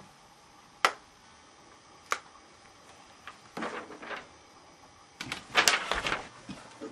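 Handling noises: a sharp click about a second in and another about two seconds in, then a brief rustle and a louder run of clicks and knocks near the end.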